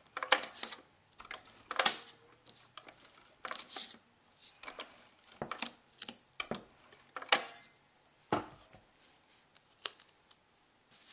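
Adhesive tape being run off a handheld tape dispenser onto the back of a corrugated cardboard heart, with paper and cardboard handling: a scattered series of about a dozen short scratchy strokes.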